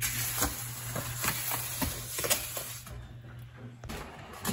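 Wet concrete being scraped and spread with a trowel over the countertop form: a string of irregular short scrapes, with a low steady hum underneath that cuts off near the end.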